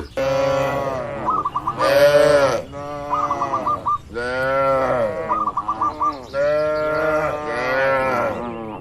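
Cattle mooing: four or five long calls in a row, each rising and falling in pitch. A short, repeated high chirping call comes in the gaps between the moos.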